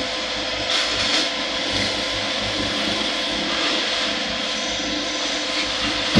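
Diesel engine of a grapple excavator working scrap, running steadily, with two short sharp noises about a second in.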